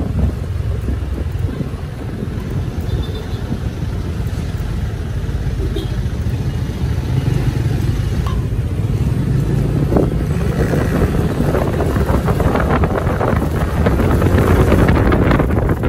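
Steady motor-vehicle rumble with wind buffeting the microphone, louder and busier in the second half.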